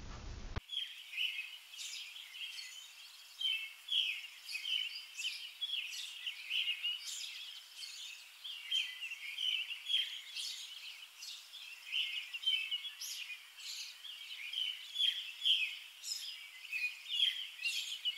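Outdoor birdsong: a dense run of short, high chirps from several birds. It starts abruptly about half a second in.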